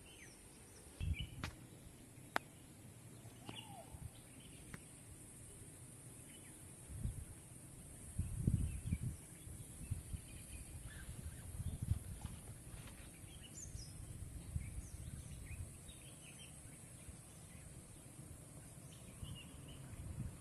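Birds chirping here and there, short calls scattered through the whole stretch, over a steady high hiss. There are a few low rumbles, the loudest about eight and a half seconds in.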